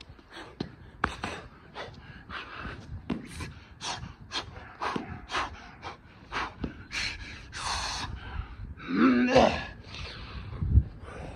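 A man breathing hard in quick, noisy gasps and puffs while doing burpees, out of breath from the exertion. About nine seconds in he lets out a louder strained groan, and a dull thud follows near the end.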